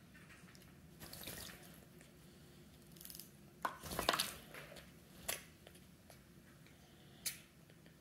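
A Quaker parrot bathing in a shallow glass dish of water, beating its wings to splash. The splashing comes in bursts, the heaviest about four seconds in, with a few short single splashes after.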